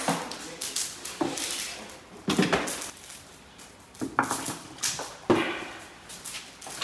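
Raw horse meat and rib bones dropped by hand into water in a large metal kazan: about five separate splashes and knocks against the pot.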